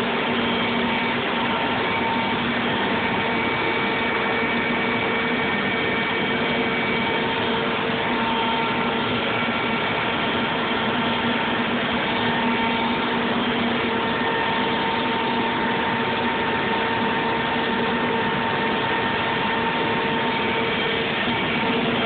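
Steady drone of shop machinery: a constant rushing noise with several steady humming tones, never changing in level.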